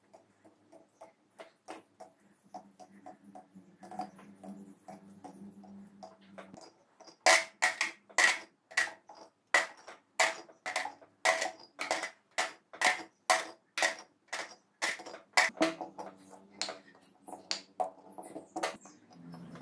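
Small steel engine parts clinking and tapping on an aluminium motorcycle cylinder head, faint at first, then a run of sharp ringing clicks at about two a second from about a third of the way in.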